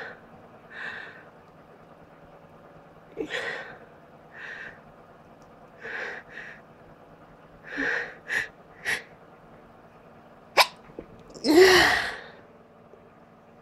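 A person sneezing: a run of short, sharp catching breaths over several seconds, a brief click, then one loud voiced sneeze about eleven and a half seconds in.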